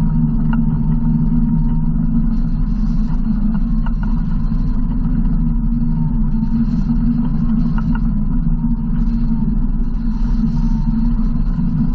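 Yamaha RMAX 1000 side-by-side's parallel-twin engine running steadily as the machine drives along a muddy trail, with a few faint clicks and knocks over the low rumble.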